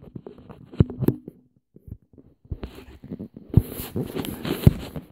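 Handling noise from plastic toy blasters being picked up and moved close to the microphone: about five sharp knocks and clacks with rustling between them, busiest in the second half.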